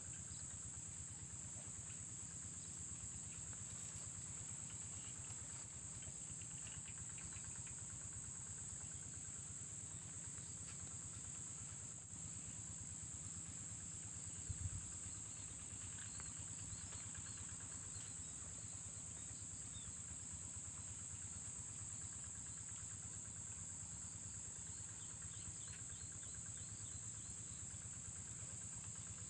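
Steady high-pitched drone of insects, unbroken throughout, with a brief thump about halfway through.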